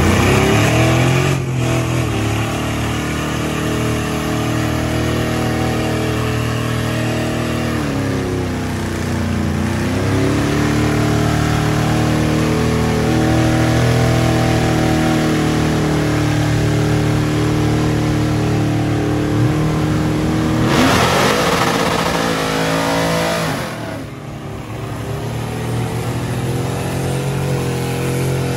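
Truck engine revving hard and held at high revs, straining under load in a truck tug-of-war pull. Its pitch sags and climbs back about a third of the way in. A loud rush of noise covers it for a couple of seconds near the end.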